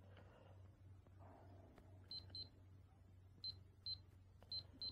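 Digital timer beeping as its buttons are pressed to set a 10-minute countdown: six short, high beeps in three quick pairs in the second half.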